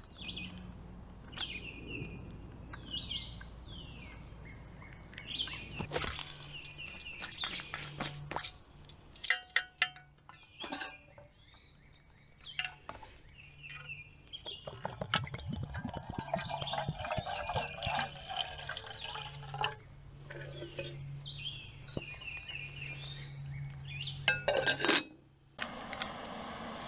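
Metal camp cookware clinking as a small gas stove and kettle are set up, then water poured for a few seconds, with bird chirps at times.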